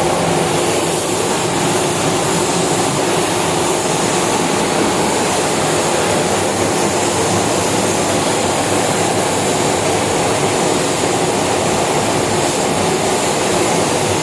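Steady hiss of a compressed-air spray gun laying on clear coat (lacquer), over the constant roar of a paint booth's ventilation fans.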